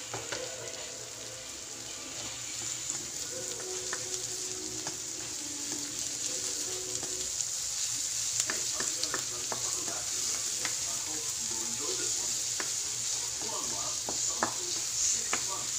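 Minced garlic and diced red onion sizzling in hot oil in a metal wok, a steady hiss. From about halfway through, a spatula stirs them, knocking and scraping against the pan.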